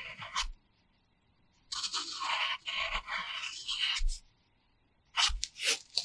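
Pencil writing on a paper workbook: a brief scratch at the start, then about two seconds of continuous gritty scratching as graphite strokes across the paper. A few short, sharp paper sounds come near the end.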